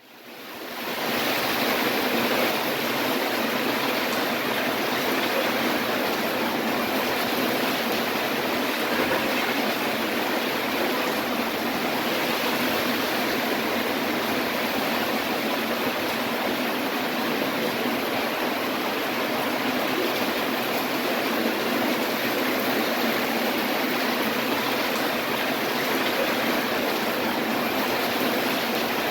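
Heavy rain falling in a city storm, with wind: a steady, dense rush that fades in over the first second or so and then holds level.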